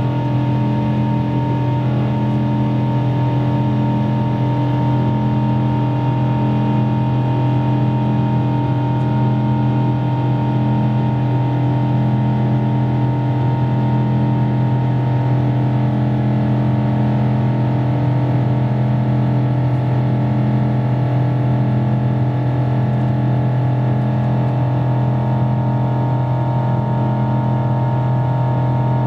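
Airliner's jet engines heard inside the passenger cabin: a steady drone with several held tones, one of them swelling and fading in a slow, even beat.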